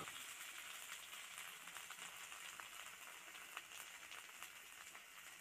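Faint sizzling of half-boiled kharkol leaves frying in oil in a kadai, with scattered small crackles.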